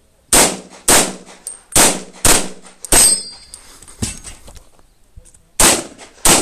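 Pistol shots fired in quick pairs, seven in all, with a pause of about two seconds before the last pair. The fifth shot is followed by a short metallic ring, a steel target being hit.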